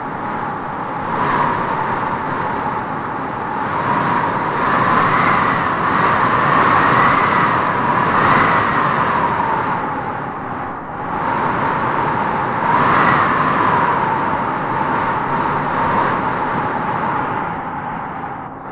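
Wind howling: a steady rush with a whistling tone that rises and falls in pitch as gusts swell, strongest in the middle and again about two-thirds of the way through.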